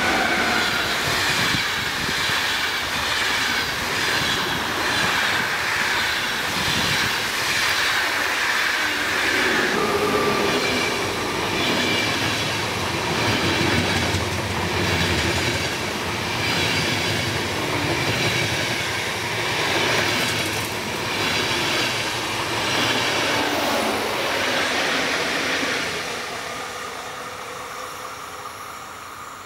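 Long electric-hauled passenger train of ÖBB coaches passing close at speed: a steady rumble with a rhythmic clatter of coach wheels over the rails. A thin high wheel squeal runs over roughly the first ten seconds, and the noise drops away about four seconds before the end.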